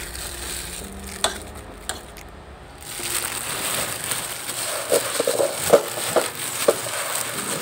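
Breadcrumbs crunching and rustling as an egg-dipped chicken cordon bleu roll is rolled and pressed in them, with a few sharper crunches in the second half. There is a single sharp click about a second in.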